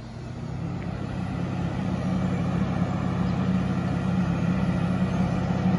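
Diesel engine of a track maintenance tamper running as it approaches, growing louder over the first two seconds and then holding a steady low hum.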